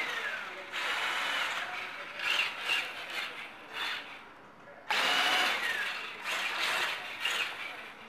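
Radio-controlled crawler chassis's motor and gears whining in two long runs as it drives back and forth, the pitch rising and falling with the throttle.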